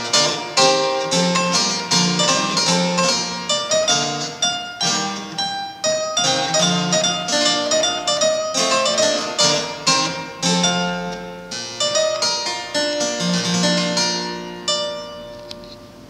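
Single-manual harpsichord playing a brisk stream of plucked notes and chords. Near the end the piece closes on a final chord that dies away.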